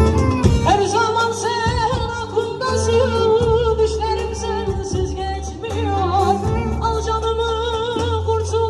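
Music: a Turkish song, with an ornamented melody line that wavers with vibrato over sustained bass notes.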